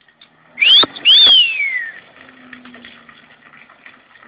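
Two loud car tyre squeals in quick succession. Each rises sharply in pitch, and the second slides back down over most of a second before fading into faint background noise.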